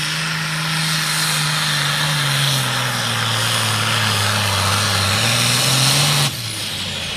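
A John Deere limited pro stock pulling tractor's turbocharged diesel runs flat out under the load of a weight-transfer sled. Its pitch sags as the engine lugs down mid-run, picks up again near the end, then cuts off abruptly about six seconds in.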